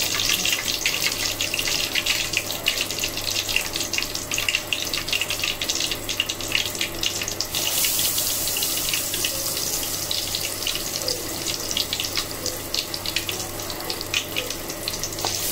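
Batter-coated mushroom and chicken balls deep-frying in hot oil in a kadai: a steady sizzle with dense fine crackling, over a faint low hum.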